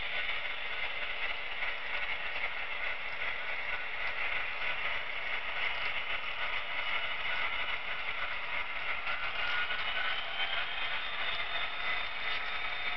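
HO-scale model freight train rolling past: a steady whir and light clatter of small metal wheels on track as the model locomotives go by and a string of hopper cars follows.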